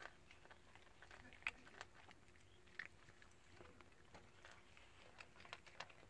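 Cats crunching dry kibble: faint, irregular crunches and clicks as they chew.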